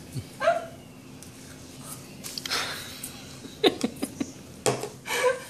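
A person tasting food in her mouth: a short rising hum about half a second in, a breath about two and a half seconds in, then small mouth clicks and a brief voiced sound near the end.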